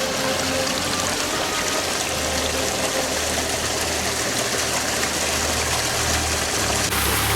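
Steady rush of falling water from a waterfall, with faint music under it. The water noise grows a little brighter and louder near the end.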